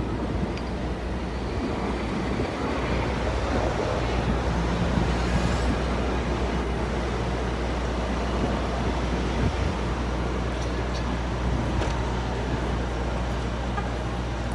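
Street traffic noise with a steady low engine drone, from a diesel coach bus idling at the curb.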